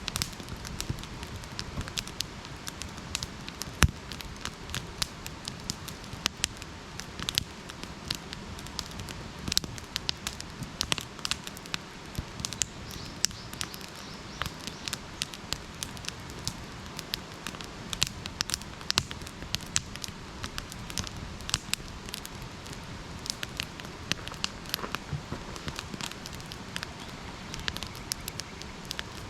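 Wood campfire burning, with frequent irregular sharp crackles and pops over a steady low hiss.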